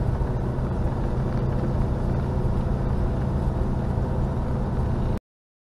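Steady engine and road noise of a camper van driving, heard from inside the cab, with a low hum; it cuts off suddenly into silence near the end.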